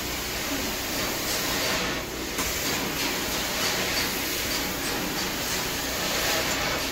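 Carpet extraction machine running, a steady rushing hiss of suction and spray. The high hiss drops briefly about two seconds in.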